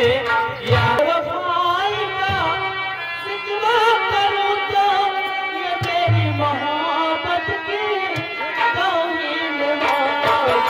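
A sad folk song sung with heavy vibrato over live drum accompaniment of a large barrel drum and dholak, with deep drum booms about a second in and again around six seconds.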